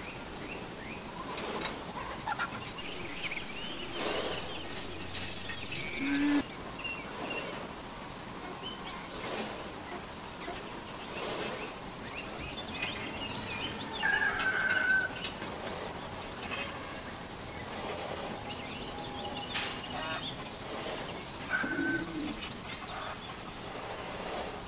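Light clicks and taps of copper tubing and a soldering iron being handled on a workbench, with a few short bird chirps and coo-like calls behind them.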